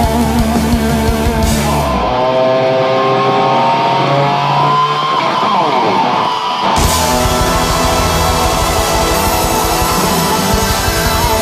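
Live rock band led by electric guitar. About two seconds in, the bass and drums drop out, leaving the electric guitar playing on its own with sliding pitch bends. The full band comes back in after about seven seconds.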